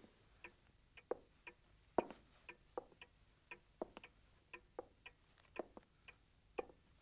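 Wall pendulum clock ticking steadily, about two ticks a second, with louder, lower knocks about once a second alongside.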